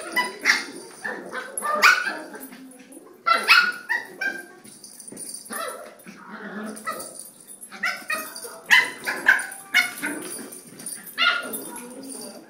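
Puppies barking and yipping as they play, short barks coming at irregular intervals.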